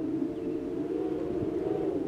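Howling wind: a steady low rush with faint whistling tones that waver slowly up and down.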